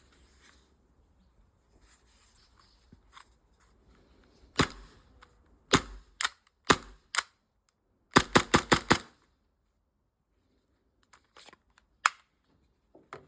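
Tokyo Marui Glock Gen 5 MOS gas blowback airsoft pistol firing. There are several single shots, then a fast string of about six shots within a second. Quieter clicks of handling come before and after.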